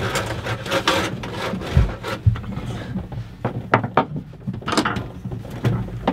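Irregular knocks, clicks and scraping as someone works by hand in a cramped boat locker at the nuts on the deck bolts from below, over a steady low hum.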